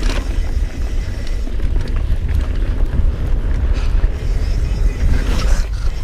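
Mountain bike rolling fast over a dirt trail: a steady low rumble of wind buffeting the microphone, over the tyres running on packed dirt with scattered small clicks and rattles.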